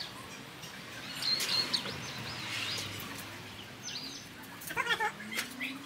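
Birds chirping, a cluster of short high calls between about one and three seconds in and a few more near the end, over steady outdoor background noise.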